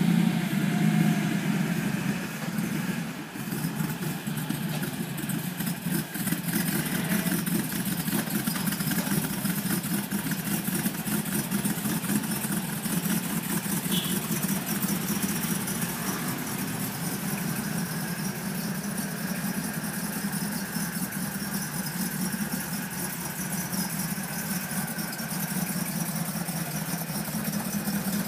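Mercedes-Benz G55 AMG V8 running at idle after a Kleemann install, a steady drone that is a little louder for the first couple of seconds before it settles. The owner calls it a bad idle and puts it down to vacuum line issues.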